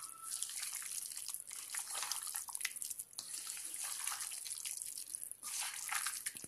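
A hand squelching and squishing raw boneless chicken pieces through a wet spice marinade in a plastic bowl: an irregular run of sticky, wet squelches with a few brief pauses.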